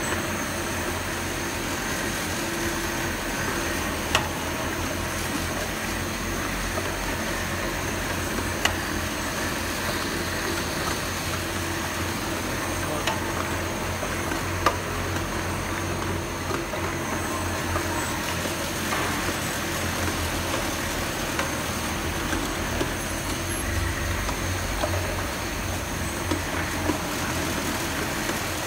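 Rotary multi-hopper bottle-filling machine running with a steady mechanical hum, with a few sharp clicks at uneven intervals.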